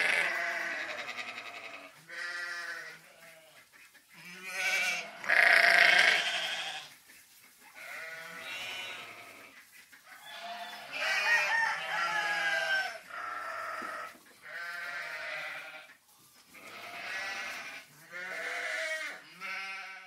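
A small group of sheep bleating, one call after another and sometimes overlapping, each call a wavering pitched cry. The loudest calls come right at the start and about five to six seconds in.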